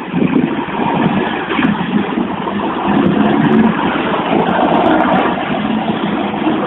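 Road traffic driving past close by: the engines of a minibus and a small box truck moving across the level crossing, a steady low rumble with no horn.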